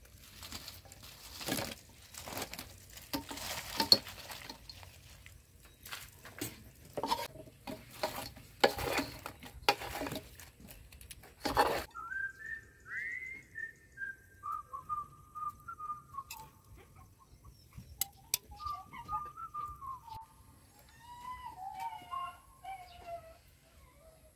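Noisy cooking sounds from a wok, uneven scrapes and sizzling strokes as fried chicken wings go into the sauce, for about the first twelve seconds. Then a whistled tune carries on alone to the end.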